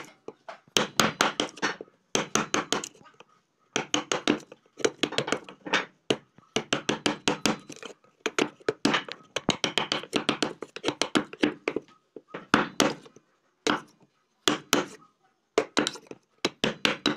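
Steel chisel chopping into a wooden window-frame rail: bursts of quick, sharp knocks, several a second, with short pauses between, splitting off chips of wood.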